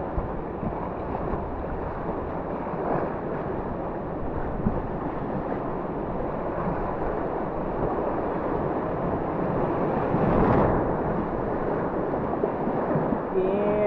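Rushing whitewater of a river rapid heard from an inflatable kayak running through it: a steady, noisy rush with wind buffeting the microphone. About ten and a half seconds in, the water surges louder for a moment.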